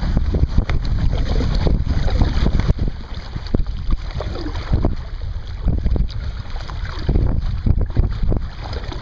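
Wind rumbling on the microphone, with water splashing and slapping against a kayak's hull as it is paddled through choppy water.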